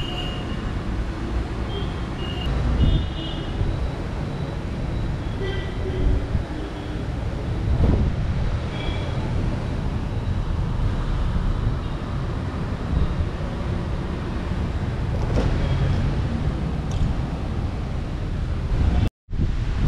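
Road traffic noise: a steady rumble of passing vehicles with a few brief high tones, cutting out for a moment near the end.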